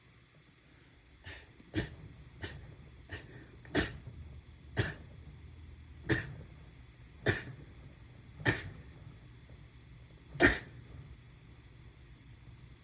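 A run of about ten short, sharp sneezes, coming half a second to two seconds apart, with the last one, about ten seconds in, the loudest.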